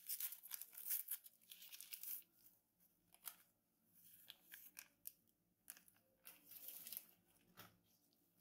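Faint crinkling and tearing of a small baking powder sachet as it is opened and handled, dense at first, then short rustling bursts as the powder is shaken out into a glass bowl of flour.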